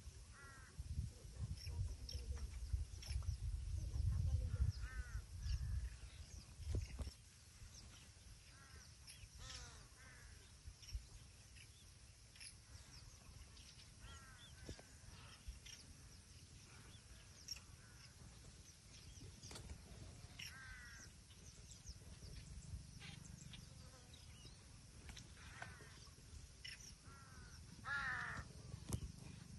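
Crows cawing now and then, harsh calls in short series, the loudest group near the end. A low rumble runs under the first seven seconds or so.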